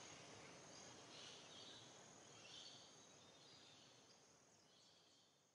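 Near silence: faint background hiss with a few faint high chirps, fading out toward the end.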